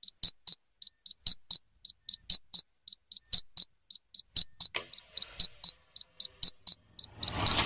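Rapid high-pitched electronic beeping from the rocket's onboard electronics, about four short beeps a second, typical of an armed flight altimeter on the pad. Near the end the rocket motor ignites and a rising rush of motor noise starts.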